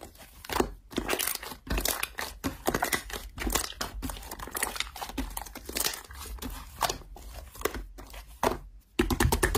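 Hands squeezing and stretching soft white slime, making a string of irregular wet crackles and pops as air pockets in it are pressed out.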